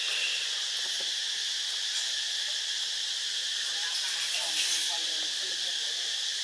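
A steady, high insect chorus, a constant shrill buzz with no pauses.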